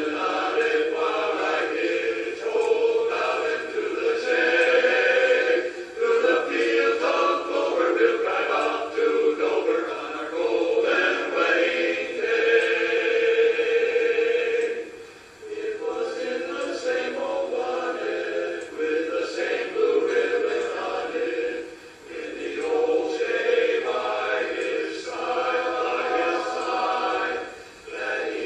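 Men's barbershop chorus singing a cappella in close harmony, with short pauses between phrases about halfway through and again later.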